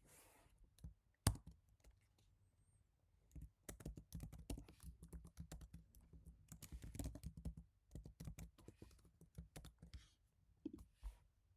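Typing on a Happy Hacking Keyboard Professional Type-S with Topre switches: a single sharp click about a second in, then runs of fast keystrokes from about three seconds in, with a short pause before a last flurry near the end.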